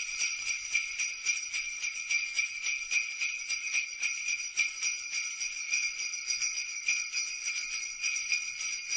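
Jingle bells shaken continuously in a fast, even rhythm, used as a cartoon sound effect.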